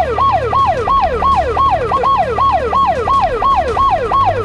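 Toy rescue helicopter's electronic siren: a fast repeating wail, about three sweeps a second, each jumping up and gliding back down, with a steady low hum underneath.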